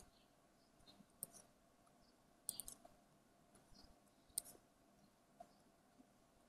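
Faint, scattered clicks of a computer mouse and keyboard keys, with a quick little run of clicks about two and a half seconds in and a sharper single click a little after four seconds.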